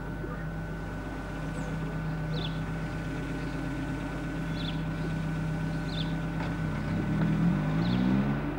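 A vehicle engine running steadily. About seven seconds in a car drives past, its engine note rising and swelling to the loudest point shortly before the end. Faint bird chirps sound every second or two.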